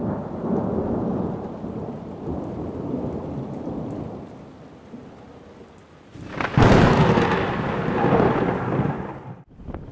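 Thunder rumbling and slowly dying away, then a sudden sharp thunderclap about six and a half seconds in that rolls on for a few seconds before cutting off abruptly near the end.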